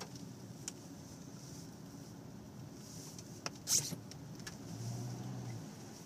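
Car driving slowly, its low engine and road rumble heard from inside the cabin, with a few light clicks. A brief sharp noise comes a little past halfway, and a short steady hum sounds near the end.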